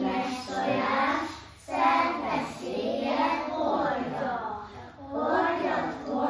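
A group of young children singing together in unison, in short phrases with brief breaths between them.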